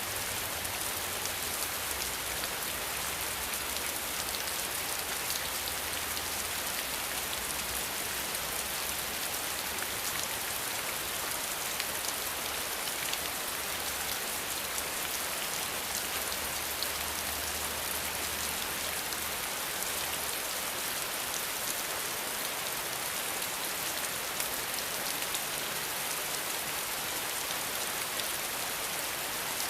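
Steady rain falling on a surface: a dense, even hiss with countless small drop ticks. A faint low rumble underneath fades out about two-thirds of the way through.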